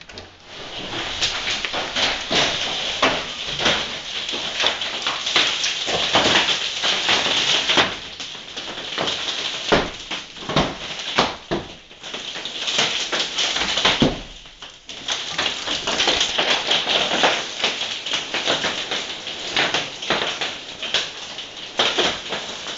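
Hailstones pelting down: a dense, loud rattle of countless sharp impacts over a hiss of falling rain. It eases briefly twice midway.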